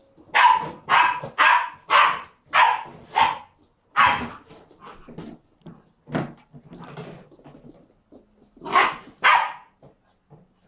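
Small black-and-tan puppy barking in play: a quick run of about six barks, then a few scattered barks, and two more near the end.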